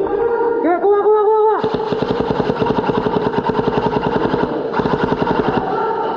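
HPA-powered airsoft gun firing full-auto in a long, fast, even string of shots, starting about a second and a half in, over background music.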